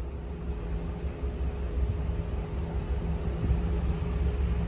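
Low engine rumble of an approaching diesel train, growing slowly louder.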